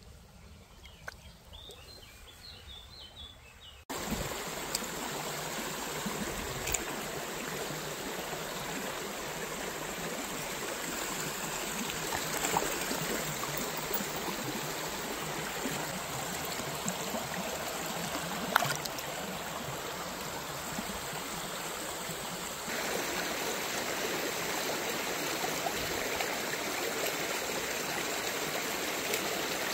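Shallow stream running over stones: a steady rush of water that starts abruptly about four seconds in and grows a little louder later on. Before it, a quiet stretch with a few faint bird chirps.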